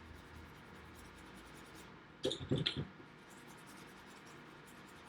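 Small toothbrush scrubbing an iPad charging port with alcohol to clear away leftover solder flux, giving faint scratchy brushing. A louder cluster of three or four quick scratchy strokes comes a little over two seconds in.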